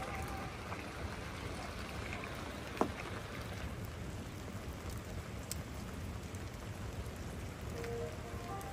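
Wood campfire burning with a steady crackle and hiss, and a sharp pop about three seconds in.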